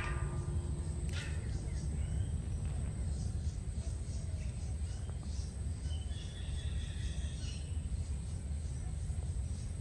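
Tropical forest ambience over a steady low rumble: insects keep up a high steady tone and a quick, regular chirping, and a bird calls briefly about two-thirds of the way in.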